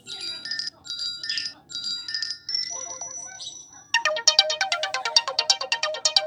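Ringtones playing on a ZTE Blade A30 (Telstra Essential Smart 2.1) phone. A short chiming phrase plays three times, then a few held higher notes. About four seconds in it is cut off by a different, fast ringtone of many quick notes.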